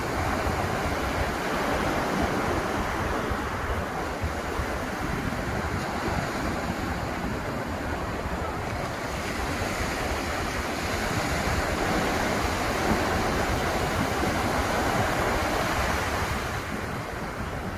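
Atlantic surf washing onto the beach, a continuous rush of breaking waves that swells and eases slowly, with some wind buffeting the microphone.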